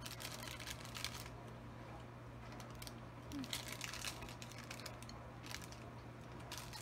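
Small plastic fruit-snack packet crinkling in a few short spurts as snacks are picked out of it, over a steady low hum.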